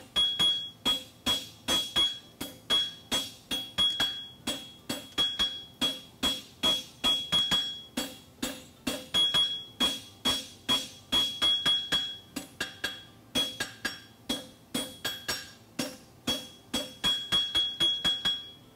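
Hand-hammer forging: a farrier's hammer striking a red-hot steel horseshoe on an anvil at about three blows a second, with a high ring from the anvil after each blow and a few brief pauses. The blows are shaping and sharpening the heel caulk of the shoe.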